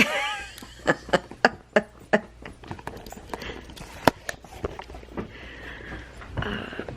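A dog's claws clicking and tapping on a hard floor as it moves about, several quick taps about a second in and scattered ones after. A brief high squeak right at the start.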